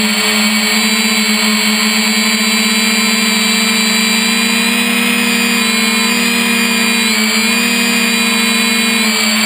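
3DR Iris+ quadcopter's electric motors and propellers whining steadily in flight, heard close up through the drone's own camera, the pitch rising and dipping slightly as the motors adjust.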